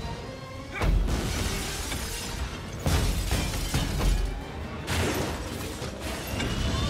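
Film sound-effects mix of a building breaking apart: several heavy deep impacts about a second apart, with crumbling concrete, debris and shattering glass in between, over orchestral score.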